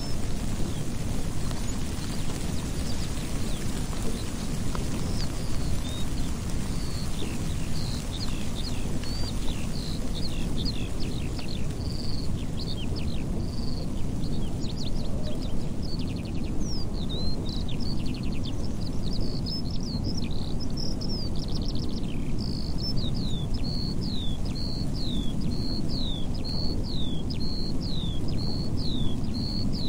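Eurasian skylark singing: high, quick chirps and trills, sparse at first and then a fast, busy run of notes from about a quarter of the way in. A steady low rumble of background noise runs underneath.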